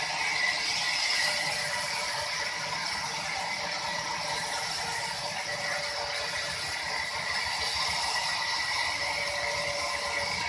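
Sawmill machinery running with a steady mechanical rattle.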